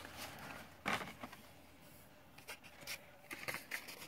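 Light handling noise: a few short clicks and scrapes of objects being picked up and moved, the loudest about a second in and several more near the end.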